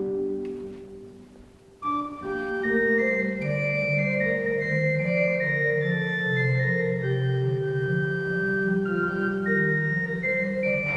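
Church pipe organ playing: a held chord dies away into the church's long reverberation, then the organ starts again about two seconds in with sustained chords and a moving upper melody.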